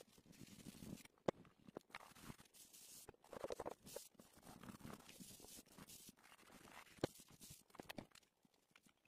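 Fingers and palm rubbing soft pastel into paper, blending the colour: faint, uneven dry rubbing strokes with a couple of sharp clicks, one about a second in and a louder one near seven seconds.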